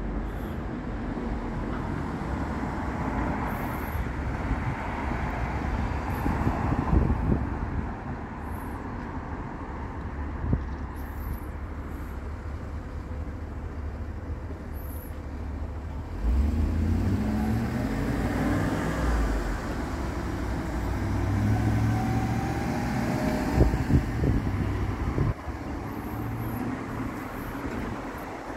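Street traffic at a city intersection: a steady rumble of passing cars. A little past halfway, a vehicle's engine climbs in pitch in several steps as it accelerates away through its gears.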